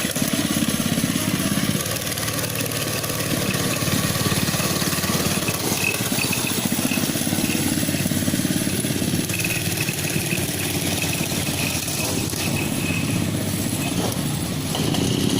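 ATV (quad bike) engine running steadily, with a fast even firing pulse throughout; it picks up slightly near the end.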